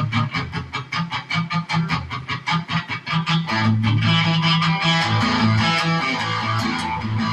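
Electric guitar playing a rock riff: quick, even strummed strokes, then fuller held chords over a bass line from about halfway in.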